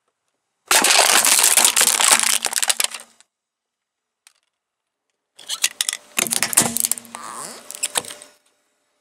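Aluminium drink cans flattened under a car tyre: loud crunching and crackling of thin metal for about two and a half seconds, starting just under a second in. After a silent gap, a second stretch of crunching and crackling begins about five and a half seconds in and lasts about three seconds.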